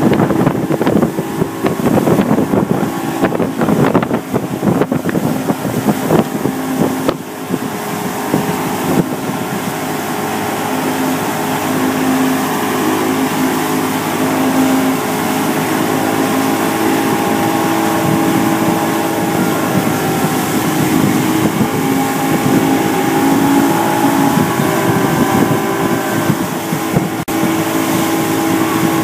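Boat's outboard motor running at speed under the load of towing a tube, with wind buffeting the microphone. The buffeting is choppy for the first several seconds, then the engine's steady tone comes through more evenly.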